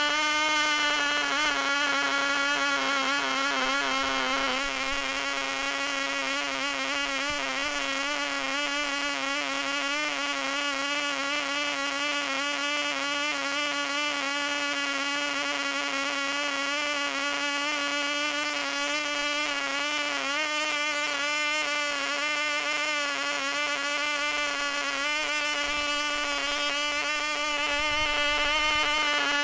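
MP Jet .061 model aircraft engine running flat out on a test stand during break-in, a steady high-pitched buzz that wavers slightly in pitch. It gets a little quieter a few seconds in and louder again near the end as the needle valve is adjusted.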